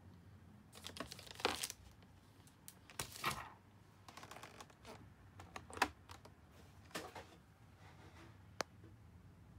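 Rustling of a plastic-wrapped pouch being lifted out of a cosmetics case, with scattered taps and clicks of the packaging being handled and one sharp click near the end.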